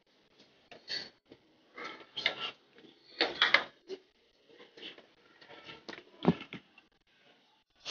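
A ladle scraping and knocking in a cooking pot as curry is dished out: an uneven run of clinks, scrapes and knocks, the sharpest knock about six seconds in.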